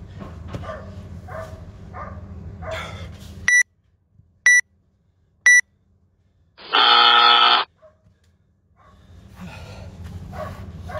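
Workout timer counting down the end of a 12-minute workout: three short, high beeps a second apart, then one longer, lower buzz marking time up.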